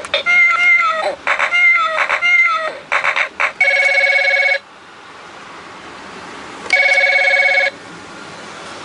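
Electronic toy telephone's small speaker playing a recorded cat meowing several times, then an electronic telephone ring twice, each about a second long, a few seconds apart.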